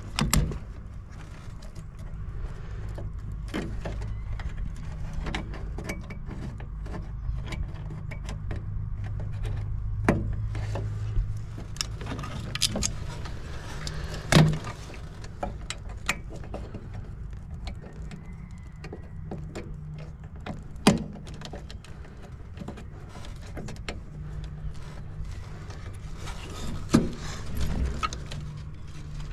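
Scattered clicks, taps and clatter of hands working with tools and small parts, over a steady low mechanical hum.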